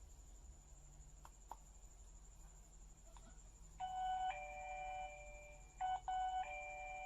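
Electronic wireless doorbell chime sounding twice, about two seconds apart. Each is a two-note ding-dong, a short higher note then a longer lower one, starting about four seconds in. Two faint clicks come before the chimes.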